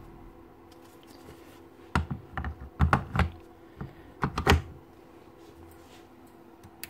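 Hard plastic clacks and knocks as a Milwaukee M18 battery pack is handled and pushed onto the opened magnetic drill's housing, in a few quick clusters between about two and four and a half seconds in. A faint steady hum sits underneath.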